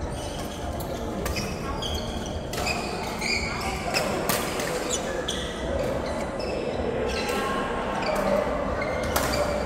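Doubles match play in a racket sport: a string of sharp hits and footfalls echoing around an indoor hall.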